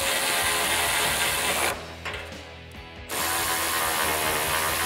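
Cordless ratchet running in two bursts of about two seconds each, with a short pause between, spinning in and tightening the exhaust hanger bolts.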